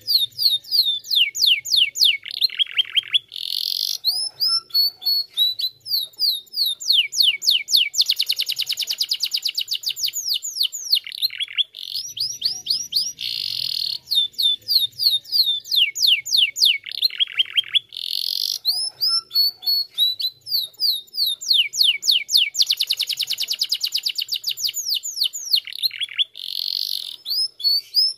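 Domestic canary singing a long, fast song of rapid trills and rolls of high whistled notes. The same song sequence comes round again about every fourteen seconds.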